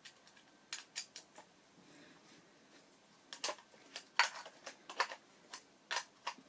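Sharp little metallic clicks and taps of a tool and screw hardware being handled while a screw is fitted back onto a FreeLine skate. A few scattered clicks come first, then a quicker, irregular run of them from about halfway through.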